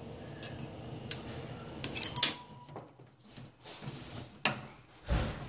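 Gas stove burner hissing, then quieting about halfway through as the flame is turned right down. Several sharp metallic clicks and clinks come over it, and there is a dull thump near the end.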